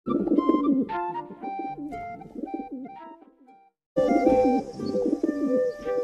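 Pigeons cooing in repeated, wavering low coos. The coos break off for a moment just before four seconds in and start again.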